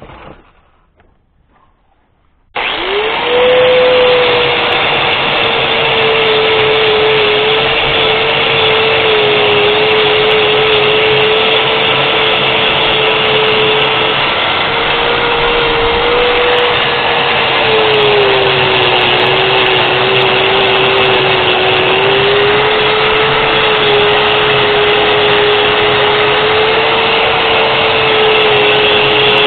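Harbor Freight Warrior 4.5-inch angle grinder switched on about two and a half seconds in. It spins up quickly to a steady high whine and keeps running, its pitch sagging slightly now and then.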